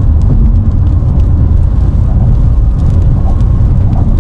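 Car driving at road speed: a loud, steady low rumble of tyre and wind noise.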